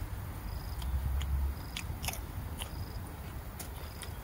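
A person chewing a mouthful of fresh leafy greens close to the microphone, with repeated crisp crunches and wet mouth clicks.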